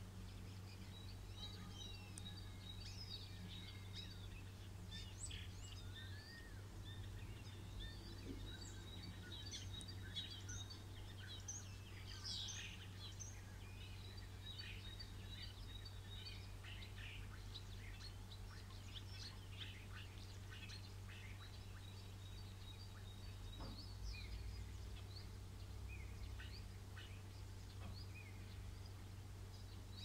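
A chorus of many songbirds chirping and singing over one another in all voices, with a faint steady low hum underneath.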